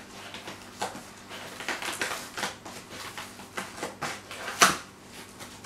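Cardboard book mailer being torn open and handled: a run of irregular rustles, scrapes and crackles, with one louder rip or snap about four and a half seconds in.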